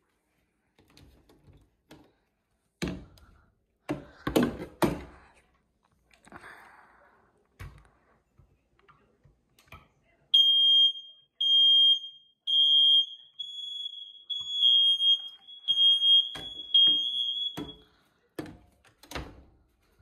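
Ceiling smoke detector sounding its high-pitched test alarm as its button is pressed with a pole: a run of loud beeps that starts about halfway through and lasts about seven seconds. A few knocks and thumps of handling come before it.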